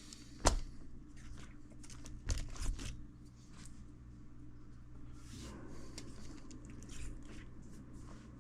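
Small clicks and knocks from handling parts at the workbench: one sharp click about half a second in, a quick cluster around two to three seconds, then faint rustling, over a low steady hum.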